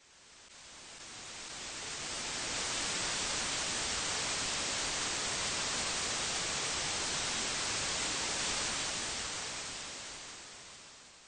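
Television static hiss, an even rushing noise that is brightest in the high range. It fades in over the first couple of seconds, holds steady, and fades out near the end.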